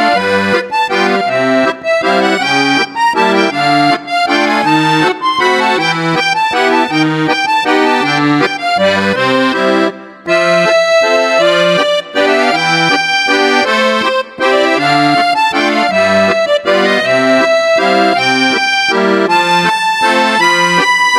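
Background music: an instrumental tune with a melody over a steadily bouncing bass line, with a brief drop about ten seconds in.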